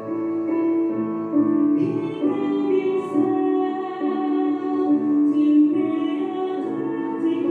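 A female voice singing into a microphone, holding long notes over an instrumental accompaniment.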